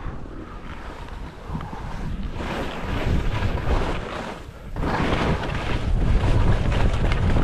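Skis scraping and chattering over choppy, tracked-up snow at speed, with wind buffeting the microphone. The rush is quieter for the first two seconds, drops in a brief lull about four and a half seconds in, then builds louder.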